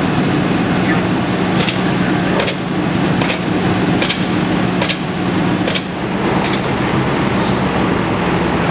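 Fire engine pumper's engine and pump running steadily, with a constant low hum. A regular sharp click sounds about every 0.8 seconds through the middle stretch.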